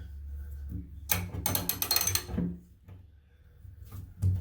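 Clicking and scraping of bathtub drain fittings being worked by hand, a quick run of clicks lasting about a second and a half, then a pause and one sharp knock near the end, under a low steady hum.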